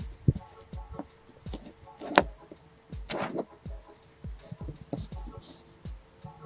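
Kinetic sand being pressed and crumbled by fingertips close to the microphone: soft crunches, a sharp crackle about two seconds in and a longer crumbly rustle around three seconds. Soft low thumps repeat about twice a second beneath it.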